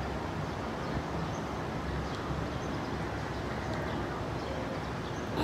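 Steady low rumble of distant expressway traffic.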